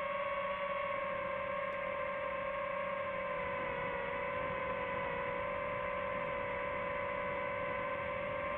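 DJI FPV quadcopter's motors whining at a steady pitch, sagging slightly a few seconds in.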